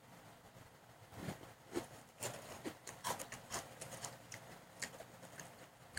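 Crispy Pik-Nik shoestring potato sticks being chewed, an irregular run of short, crisp crunches several times a second starting about a second in.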